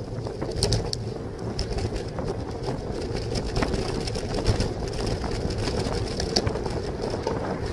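Wind buffeting the microphone and tyre and road noise while riding a bicycle, a steady rumble with frequent small clicks and rattles.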